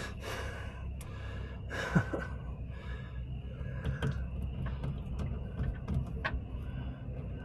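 Engine oil draining from a Cat C12 diesel's oil pan into a drain pan, with the drain plug held in the hole to keep the stream steady. A low steady flow with a few small clicks and knocks from the plug and pan being handled.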